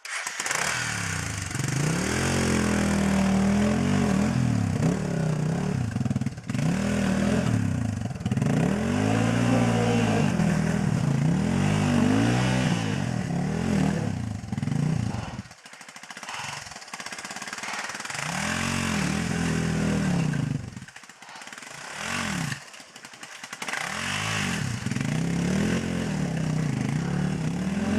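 Motorcycle engine revving in repeated bursts, its pitch rising and falling again and again as it labours slowly up a steep, wet trail, with two short lulls in the second half.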